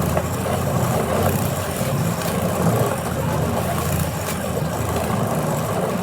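Steady low rumble of a swivel chair spinning fast, with a few faint clicks over it.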